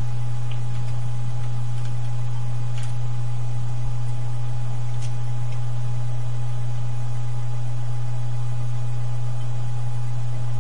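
Steady, loud low electrical hum with a faint higher whine above it, and a few faint clicks, one about three seconds in and another about five seconds in.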